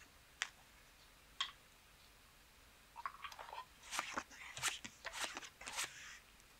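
Casino chips clacking as bets are picked up and restacked, a few separate sharp clicks at first, then a busier run of clicks and short slides about three seconds in as playing cards are dealt from the shoe onto the felt.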